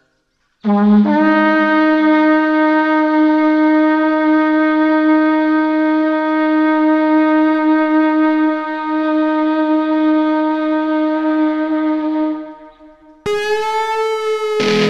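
Hand-held blowing horn sounded in one long, steady note held for about twelve seconds, then fading out. A second, higher note is blown near the end.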